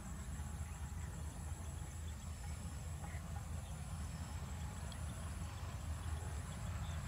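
Trackside ambience: a steady low rumble under a high insect buzz that pulses on and off about once a second, with a few faint bird chirps.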